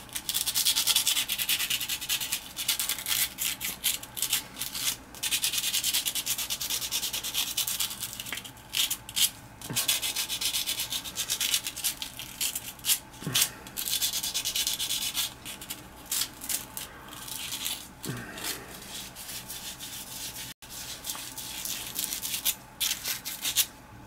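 A gas furnace's flame sensor rod being scrubbed with abrasive cloth to clean it: quick, scratchy back-and-forth rubbing strokes in runs, broken by a few short pauses.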